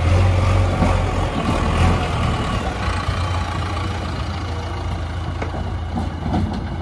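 JCB backhoe loader's diesel engine running steadily with a deep, even drone while the machine moves.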